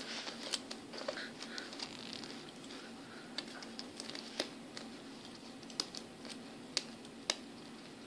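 Faint, scattered clicks and light scratching, about seven sharp ticks spread unevenly across the stretch, over a low steady hum.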